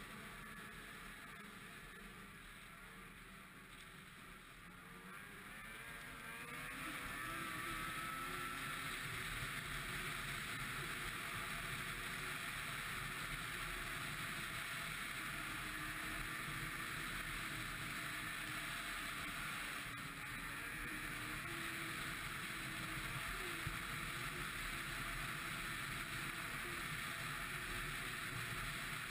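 Ski-Doo MXZ 600 XRS snowmobile engine picking up speed about six seconds in, its pitch rising, then running steadily at speed under a constant rushing noise.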